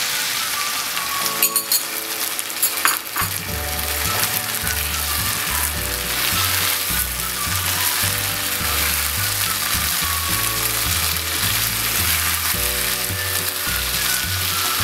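Chilli chicken sizzling in a hot pan as cornflour-and-water slurry is poured in and stirred through the sauce, with a few spoon clinks against the pan in the first seconds.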